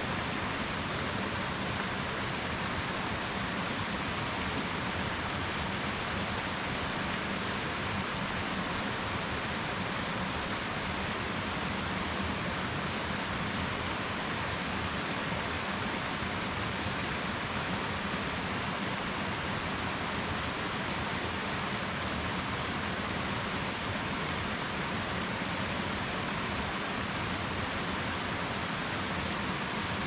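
Waterfall: falling water splashing in a steady, even rush with no breaks or changes.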